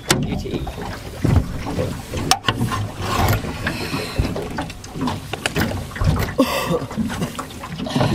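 A landing net being hauled out of the water and in over the side of an aluminium dinghy: water splashing off the net, with several sharp knocks as the net's handle and frame strike the metal hull.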